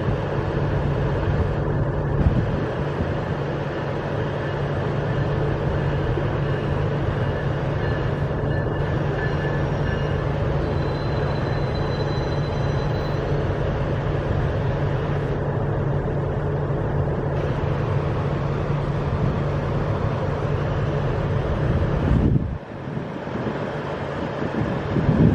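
Diesel-hauled commuter train running with a steady low engine hum and rumble, which drops away suddenly about 22 seconds in.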